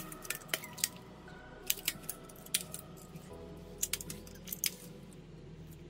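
Rubber bands being stretched and wound around a smartphone, snapping against its glass and frame in a run of irregular sharp clicks. Soft background music plays underneath.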